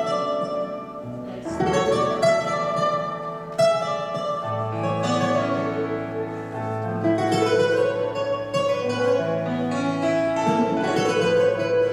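Live acoustic band music with plucked strings, bowed violin and accordion over a held low bass line that comes in a few seconds in.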